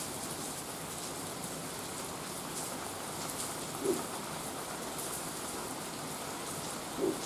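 Steady rain falling in an even hiss, with two brief low thumps about three seconds apart.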